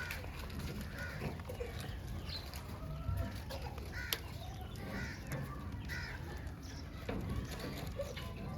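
Birds calling, short repeated calls about once a second over a steady low rumble, with one sharp click about four seconds in.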